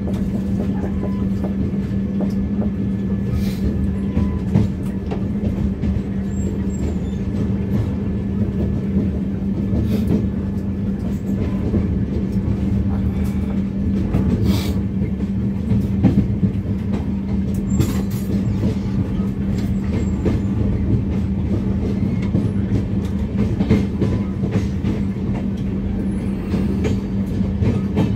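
Duronto Express passenger train running: a steady rumble with a constant low hum, and scattered clicks and knocks from the wheels and running gear.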